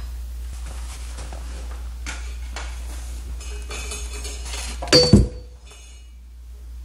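Metal parts of a floor lamp clinking lightly as they are handled, then one sharp metallic clank about five seconds in that rings briefly. A steady low hum runs underneath.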